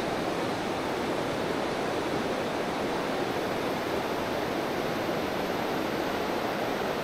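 Steady rush of a mountain river pouring over a rocky riffle, an even, unbroken water noise.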